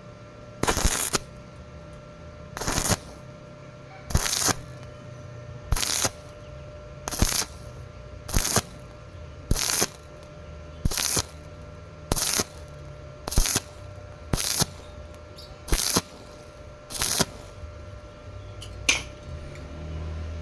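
Stick-welding arc struck in short, crackling bursts, about thirteen of them, each about half a second long and a little over a second apart: the arc is made and broken over and over, stitch-welding thin galvanized square tube.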